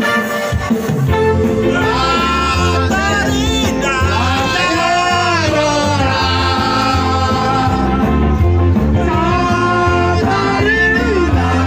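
Loud amplified dance music: a voice singing over a steady bass beat.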